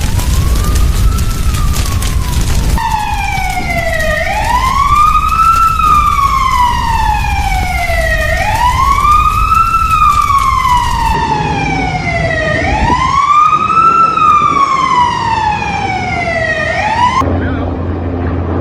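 Siren wailing in slow cycles about four seconds long, each a quick rise in pitch and a longer fall, over a low rumble. It cuts off suddenly near the end.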